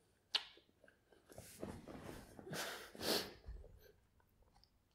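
A man breathing hard and snorting through his nose while chewing a super-hot chili pepper, with a sharp click about a third of a second in. There are several noisy breaths, the strongest near three seconds in.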